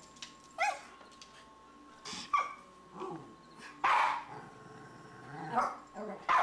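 Dog barking at a cat during play: single sharp barks about every one and a half seconds, four in all.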